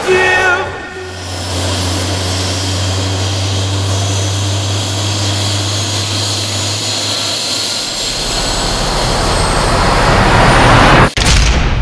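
Steady jet-like engine noise with a low hum underneath, swelling in loudness toward the end. It cuts off abruptly near the end, followed by a short, loud hit.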